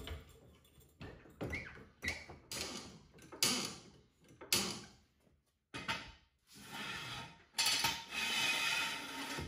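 Hydraulic floor jack being pumped by its long steel handle, a short creaking stroke about once a second as it raises the front of the car. The last few seconds hold a longer stretch of steady hiss-like noise.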